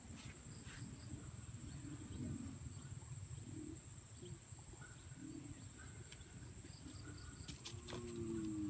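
A few soft, low animal calls spaced a second or more apart, then a longer call that glides down in pitch near the end, over a steady faint high-pitched whine.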